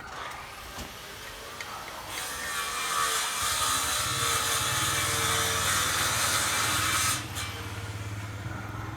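A power tool cutting for about five seconds, then stopping abruptly, as in cutting steel reinforcement bars. A low steady hum starts partway through and keeps going.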